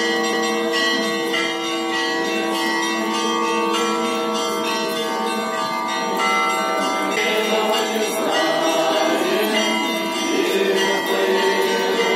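Orthodox church bells ringing continuously, many overlapping sustained tones struck in quick succession: the festal ringing for an Easter procession. From about seven seconds in, crowd voices mix in under the bells.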